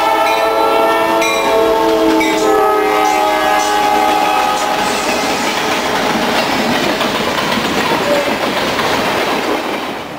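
Norfolk Southern freight locomotive's air horn blowing one long chord as it passes close by, the pitch dropping as it goes past. The horn stops about four seconds in, leaving the steady noise of freight cars rolling past on the rails.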